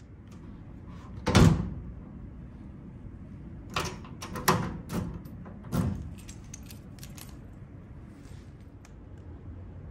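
A door shutting with a heavy thud, then a quick run of lighter knocks and clicks a few seconds later.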